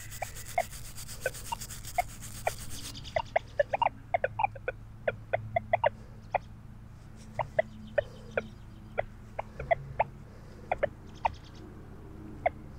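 Chickens clucking in short, irregular notes, several a second at times, with a scratchy hiss during the first three seconds.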